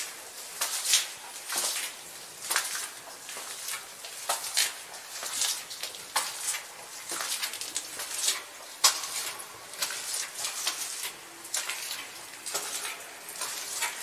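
Footsteps on a cave floor strewn with small loose rocks, irregular steps about one to two a second, with the cave's reverberation.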